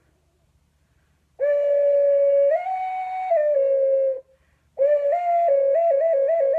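Ocarina played by a first-time beginner. About a second and a half in, a held note steps up to a higher note and back down. After a short break, a run of quick notes hopping back and forth between two or three pitches begins.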